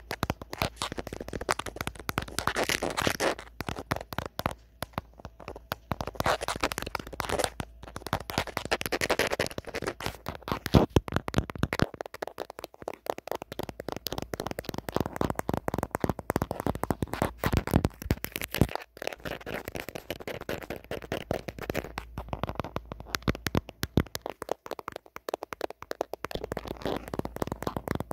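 Natural fingernails tapping and scratching on an old mobile phone: rapid clicks running throughout, mixed with short scratchy runs.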